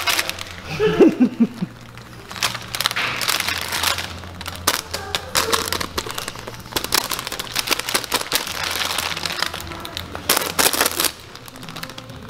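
Crinkly fabric cat tunnel rustling and crackling in irregular bursts as a kitten scrambles and bats around inside it.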